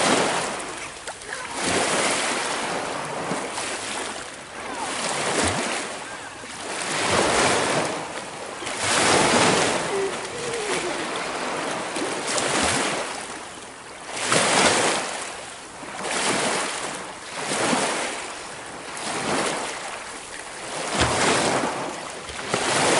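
Small lake waves washing in over a rocky shore, swelling and falling back about every two seconds.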